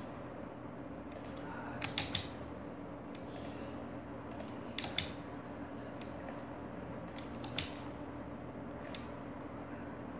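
A few sharp clicks from a computer mouse and keyboard, some in quick pairs, over a steady low hum.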